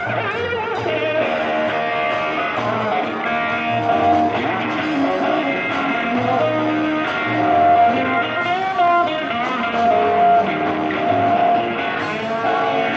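Live rock music from a guitar–bass–drums trio: an electric guitar plays long sustained notes that bend and waver, over a bass line of repeated low notes.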